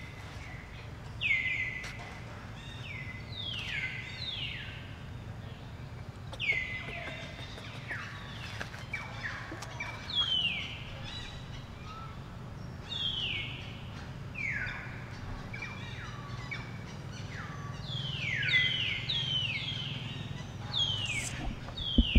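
Birds calling: many short whistled calls, each sliding down in pitch, repeated and overlapping, over a low steady rumble.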